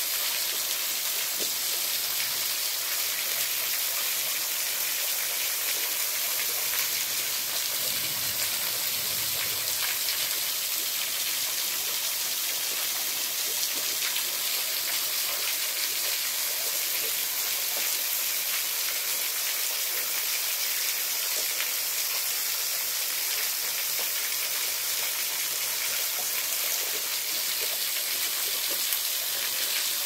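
Thin waterfall: many slender streams of water falling from a rock ledge and splashing into a shallow pool, a steady, even hiss full of small splashes.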